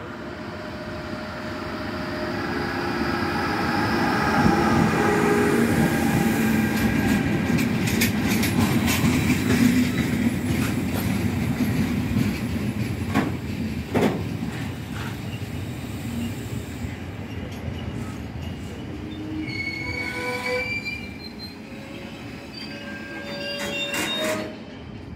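Freight train hauled by a Renfe class 253 electric locomotive passing close by: a rumble that swells as it approaches, then the steady rolling of the wagons. A couple of sharp clacks over the rails come about halfway through, and high metallic wheel squeal comes later.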